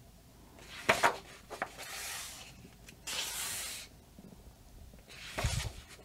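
Paper pages of a thick paperback colouring book being handled and turned: a couple of light ticks, then two soft swishes of paper, and a low thump near the end as the page is turned over and laid flat.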